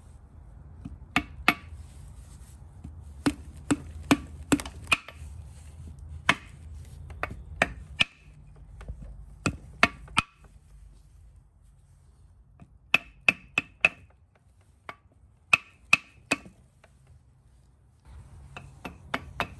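Hammer tapping a metal block against a crankshaft oil seal to drive it evenly into its cast-iron housing on a John Deere diesel engine block. The sharp metal taps come in short runs of two to five, with pauses while the block is moved around the seal.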